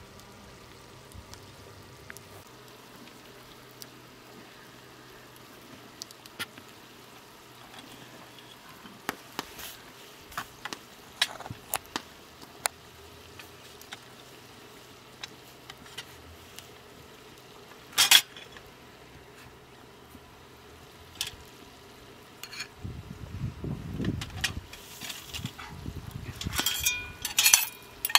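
Cookware and utensils being handled during cooking: scattered light clinks and knocks of metal on pots and dishes over a faint steady background. There is one sharp knock about two-thirds of the way through, a low rumbling stretch a few seconds before the end, then a quick run of ringing clinks.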